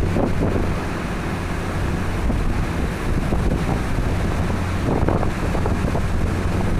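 Typhoon-force wind gusting, buffeting the microphone with a heavy low rumble that surges about five seconds in.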